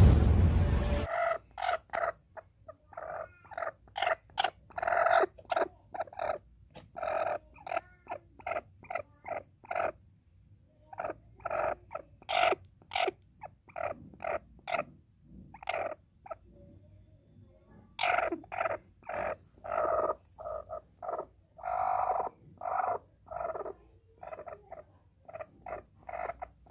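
A broody hen on her eggs clucking in short, repeated calls, about two a second, pausing briefly twice. In the first second a loud crash-like sound fades out.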